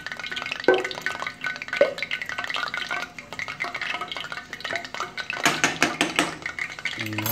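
A spoon stirring and scraping refried beans warming in a metal frying pan: irregular scrapes and knocks of the spoon against the pan, busiest near the end.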